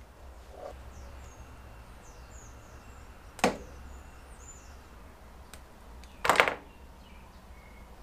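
Two sharp snips of a hand wire cutter closing on electrical wire, about three seconds apart, the second a little longer, over a low steady hum.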